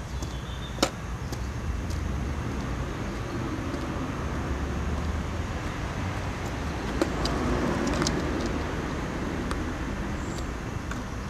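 Steady low outdoor background rumble, with a few short sharp clicks, the clearest about a second in and another around seven seconds in.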